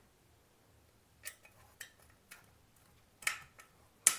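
Small metal clicks and taps of a screwdriver working the screws on a ceiling fan's motor housing, five scattered ticks with the loudest two near the end.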